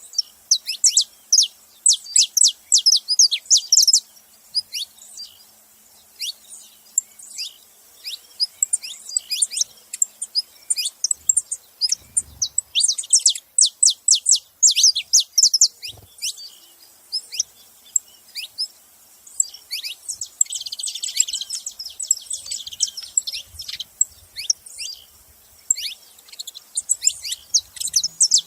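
Several saffron finches chirping and singing together: runs of short, sharp, high notes that sweep downward, coming in bursts with brief pauses. The notes grow densest and overlap about two-thirds of the way through.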